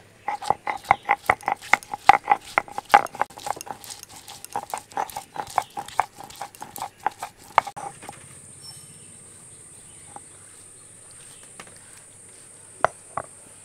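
Stone roller of a shil-nora knocking and grinding on the grooved stone slab as it crushes garlic and ginger into paste. The rapid clacks come about four a second with a ringing note and stop after about eight seconds. Two more knocks come near the end.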